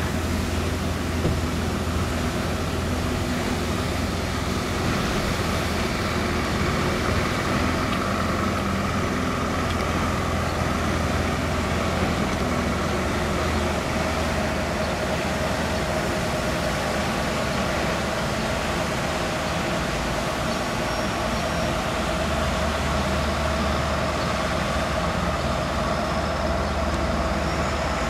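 Street sweeper truck running steadily close by, its engine humming low under the even scrubbing of its rotating brooms on the pavement; a steady higher whine grows stronger about halfway through.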